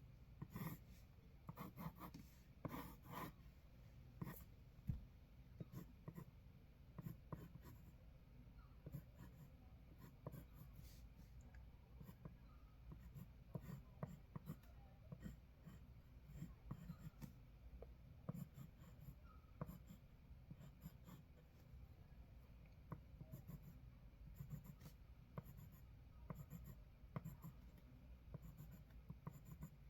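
Pencil scribbling on paper: faint, quick, irregular scratching strokes, a little louder in the first few seconds.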